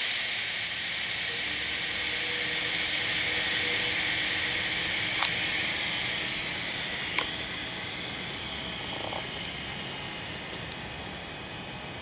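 Compressed air hissing out of a Champion HRA25-12 25 HP air compressor, a steady hiss that slowly fades, with a few faint clicks.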